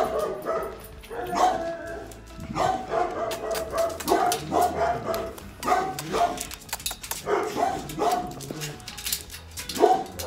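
Dogs barking repeatedly in a shelter kennel, many short barks in quick succession.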